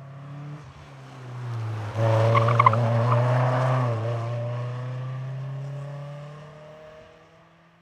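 A street-legal car's engine running hard at full throttle as it passes close by. The engine gets suddenly louder about two seconds in, then fades away into the distance near the end.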